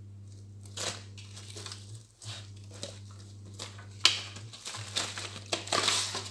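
Plastic wrap and a plastic bag crinkling and rustling as they are pulled off a whole raw chicken on a foam tray, getting louder and busier in the last couple of seconds, over a steady low hum.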